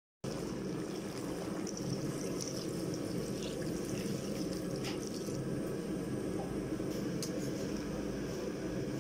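Fish and cauliflower curry simmering in a pan, its gravy bubbling steadily, with a few faint clicks.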